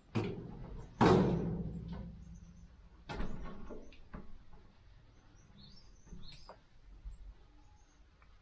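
A few sudden knocks and thumps, the loudest about a second in and ringing on briefly, then a few short high bird chirps near the middle.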